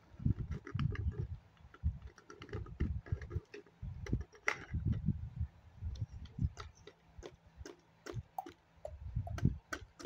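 Plastic toy pony and doll being moved along a tabletop: irregular light clicks and soft knocks as the toy's hooves tap the surface.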